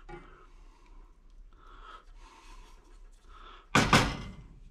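Wooden spoon stirring thick chili in a stainless steel pot, faint, then a glass lid with a metal rim set down onto the pot with a loud clatter near the end.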